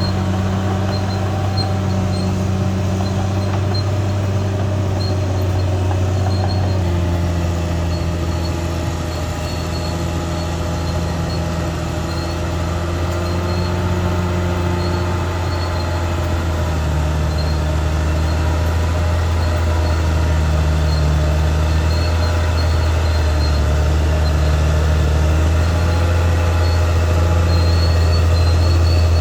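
Caterpillar D6R XL bulldozer's diesel engine running steadily. Its note drops a little about a quarter of the way in and again just past halfway, and it grows slightly louder toward the end.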